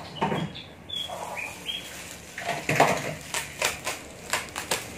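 Black plastic wrapping crinkling and rustling as it is pulled off the end of a fishing rod by hand, in irregular bursts, with a few brief high squeaks in the first two seconds.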